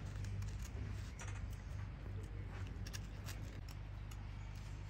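Knife blade shaving bark and wood from a forked stick: a series of short, irregular scraping cuts, over a steady low hum.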